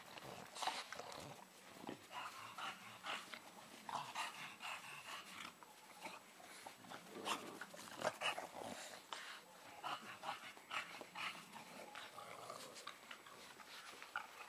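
Bulldog puppies playing, with short, irregular dog vocal sounds and scuffling throughout.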